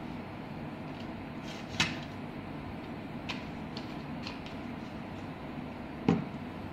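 Handling noises of an air conditioner circuit board and its wiring on a wooden workbench: a sharp click about two seconds in, a few light ticks, and a heavier knock near the end, over a steady low background rumble.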